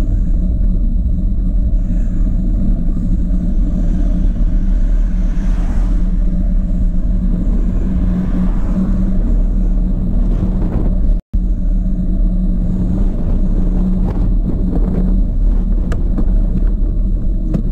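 Steady, loud wind rumble on a bike-mounted action camera's microphone while cycling along a road, with a car passing about eight seconds in. The sound drops out for an instant a little past the middle.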